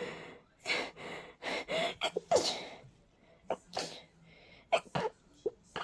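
A person sneezing in a rapid fit from a head cold with a stuffy nose: many short sneezes in quick succession, the loudest about two and a half seconds in.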